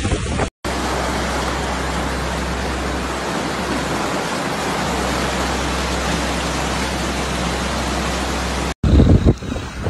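Steady, even rushing of storm water, with a low steady rumble underneath. It starts and stops abruptly just after the start and about a second before the end, with brief gusts of wind buffeting the microphone on either side.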